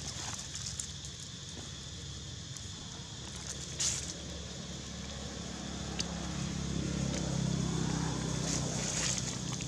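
Outdoor ambience: a steady high drone of insects, with a low motor hum from a passing vehicle that grows louder in the second half. A few short dry crackles, like leaves being disturbed, come through it.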